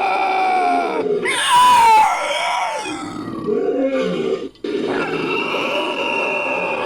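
Invented creature sound effect made from a human voice layered with animal recordings: continuous growls and grunts, with a loud shrieking roar that slides down in pitch a little after a second in and a brief break about four and a half seconds in.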